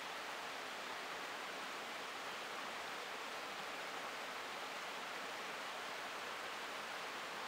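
Shallow mountain stream running over stones: a steady, even rush of water.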